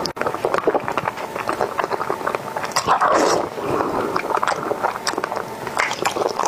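Close-up eating sounds: wet slurping and smacking as sticky, sauce-coated cola-braised beef tendon is sucked off chopsticks and chewed. A rapid run of small wet clicks, with a longer slurp about three seconds in.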